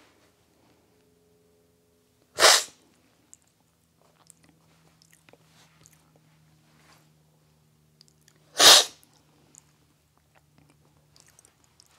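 Two loud, sharp slurps of brewed coffee from a cupping spoon, about six seconds apart, made while tasting the cups at a coffee cupping.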